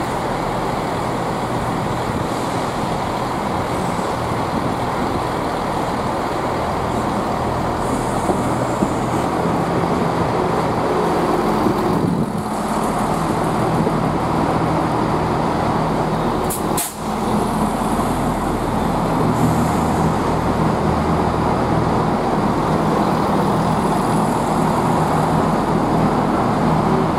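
Diesel multiple unit engines idling at a station platform: a steady low rumble with a hum of engine tones, with a brief sharp hiss about two-thirds of the way through.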